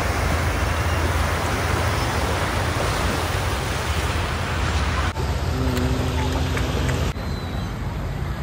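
Steady rushing noise of wind and small waves on a lake shore, with a strong low rumble. It changes abruptly about five seconds in and again about seven seconds in, and is somewhat quieter after the second change.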